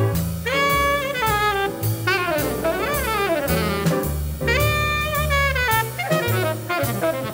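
Jazz quintet recording: a tenor saxophone solos in fast runs that sweep up and down, over walking double bass, piano and drums with steady cymbal strokes.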